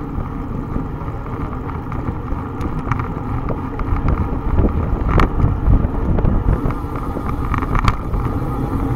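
Wind rushing over a bike-mounted camera's microphone while cycling at about 25 km/h, with road rumble and a few sharp rattles as the bike goes over bumps.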